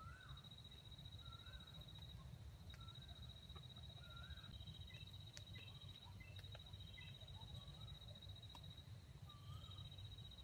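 Faint outdoor ambience: a steady high-pitched insect-like trill, with a bird's short rising-and-falling call repeated about every second and a half, pausing for a few seconds in the middle.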